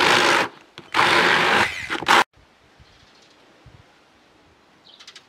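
Hand-held immersion blender running in two short bursts through soaked melon seeds, with a brief pause about half a second in. The motor cuts off abruptly a little over two seconds in, leaving only faint background.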